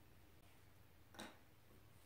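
Near silence with a low room hum, and one faint short click a little over a second in as small carburetor parts are handled.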